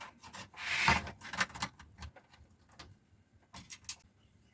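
Hands fitting an RCA jack into the top of an amplifier cabinet: a short scrape about a second in, then scattered small clicks and knocks.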